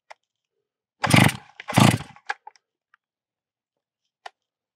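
Stihl MS660 two-stroke chainsaw pull-started twice in quick succession: each pull gives a short burst as the engine turns over and sputters but does not keep running, as the saw is being run dry of fuel.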